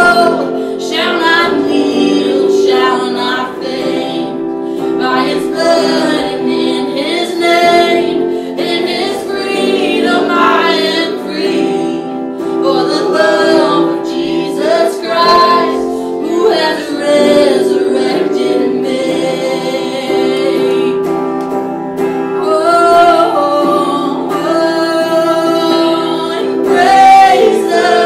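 Worship song: a woman singing the lead over steady held chords, with phrases that rise and fall throughout.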